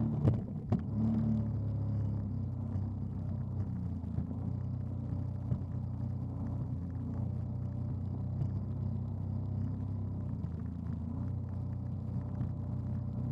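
Jet ski engine running steadily at speed, a low even hum, with water rushing in the wake. A couple of sharp knocks about half a second in.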